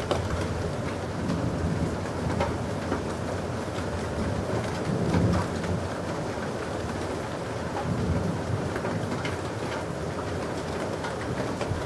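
Thunder rumbling low over steady rain, with the rumble swelling briefly about five seconds in.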